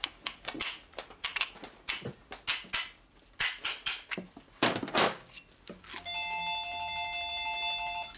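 A ball-peen hammer strikes a steel punch held against a Harley WLA transmission gear in a quick series of about a dozen metallic blows, trying to drive the part in deeper without it budging. About six seconds in, a phone starts ringing with a steady electronic ringtone.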